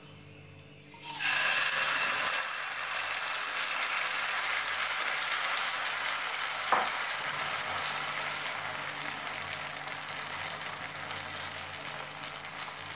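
Rava uttapam batter (semolina and curd with chopped vegetables) hitting hot oil in a nonstick frying pan: a loud sizzle starts suddenly about a second in and goes on steadily, easing slowly, as a spoon spreads the batter. One sharp click comes midway.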